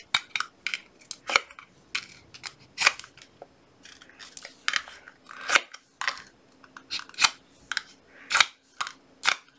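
Irregular sharp clicks and crackles of a plastic drinking straw being squeezed flat between fingers and then teeth, to make its cut end work as a reed.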